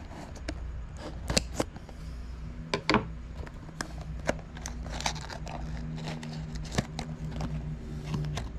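A mystery-box package being opened by hand: plastic and cardboard packaging crinkling and tearing, with scattered sharp clicks.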